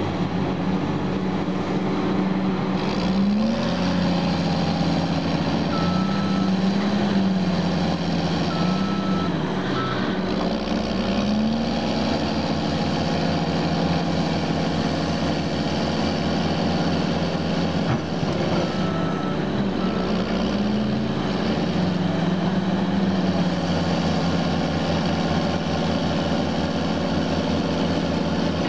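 Heavy diesel engines of a Caterpillar D6R crawler dozer bogged in mud and an excavator working beside it, running steadily with the engine note rising and falling several times. A few short high beeps of a backup alarm sound now and then.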